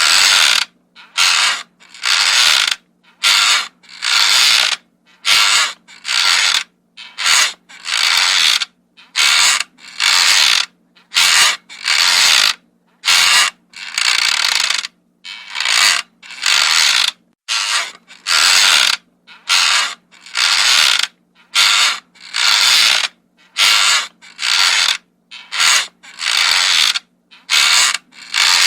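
Wooden rocking chair creaking as it rocks, a short creak about once a second in a steady rhythm.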